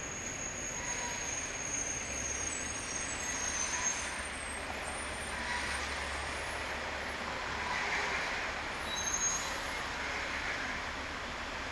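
City street traffic: cars and a pickup truck driving past, swelling as each one passes, with a few thin high squeals now and then.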